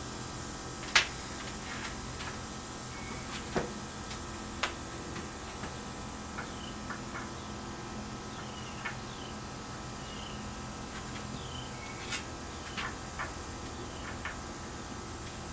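Scattered light clicks and taps of small tools and parts being handled on a work table, the sharpest about a second in, over a steady electrical hum. Faint short chirps come and go in the background.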